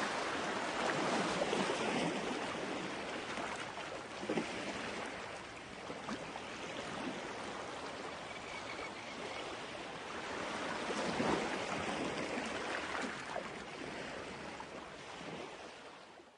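Outdoor wash of sea water and wind, swelling and easing every few seconds, then fading out quickly at the end.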